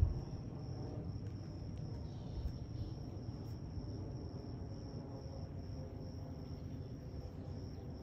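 A steady, high-pitched insect trill, unbroken throughout, over a low background rumble, with a brief knock right at the start.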